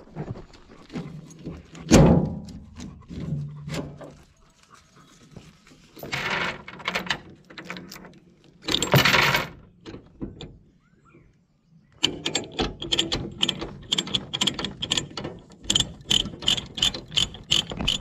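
Ratchet chain load binder being cranked loose: a regular run of sharp clicks, about four a second, through the second half. Earlier, a loud knock about two seconds in and two longer rattling noises.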